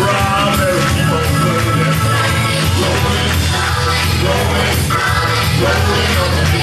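Recorded song with a lead singer over a band with a steady beat, played back loud.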